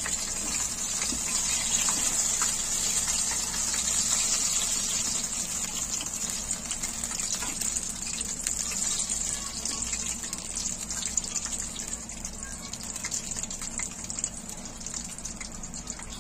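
Batter-coated bread pakoras deep-frying in hot oil in a pan: a steady sizzle with fine crackling, slowly getting quieter toward the end.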